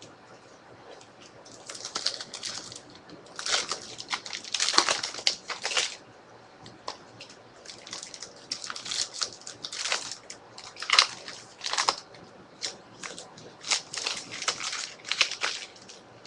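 Trading-card pack wrappers crinkling and rustling as packs are handled and opened, in irregular bursts of crackling with short quiet gaps between them.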